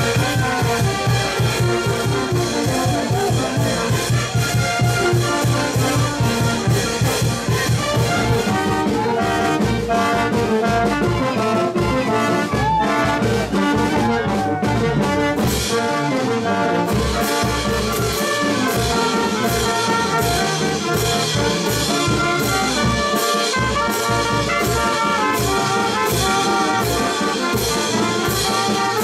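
Andean brass band of trumpets, trombones, tuba and drums playing a lively huaylas dance tune over a steady drum beat. About halfway through the music changes abruptly, and another brass band carries on in the same style.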